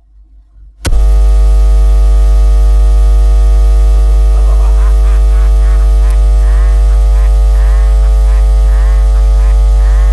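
A loud electrical hum with a deep low tone and many buzzing overtones cuts in suddenly about a second in, like a bad VHS signal. From about halfway through, a run of short wavering chirps repeats over it, roughly two a second.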